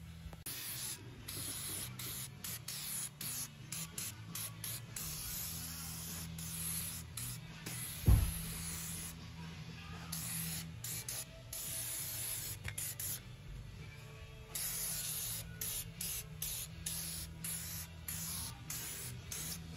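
Aerosol can of rust-proofing spray hissing as it coats a car's underbody, in short squirts and longer passes that keep stopping and starting. A single low thump about eight seconds in.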